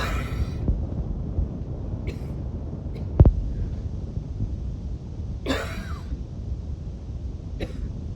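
A woman's wheezy coughing: a harsh cough at the start and a longer, raspier one about halfway through, with small throaty breaths between. A brief low thump about three seconds in, over a steady low rumble.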